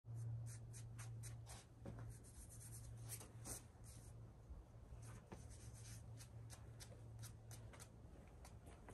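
Faint scuffs and scrapes of a boulderer's hands and climbing shoes on sandstone: a quick, uneven series of small scratches and taps over a steady low hum.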